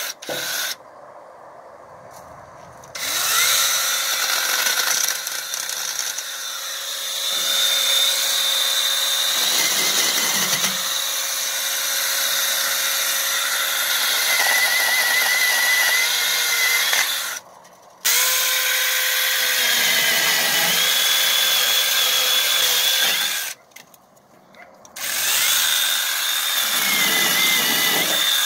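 Sainlogic 6-inch mini cordless electric chainsaw with a brushless motor, running in long bursts while it cuts through small branches. Its high whine wavers as the chain bites into the wood, and the motor stops and restarts three times.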